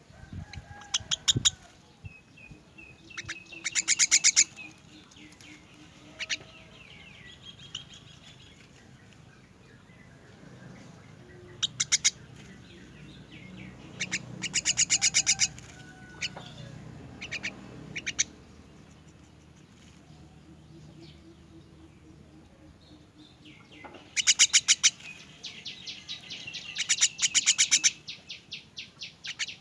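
Young myna birds giving harsh, rapidly pulsed begging calls in several short loud bursts, with fainter chirps between them.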